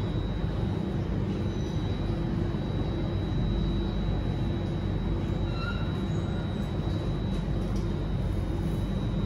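Alstom Metropolis C830 metro car running on the line, heard from inside the car: a steady rumble of wheels and running gear on the track with a thin steady high whine above it.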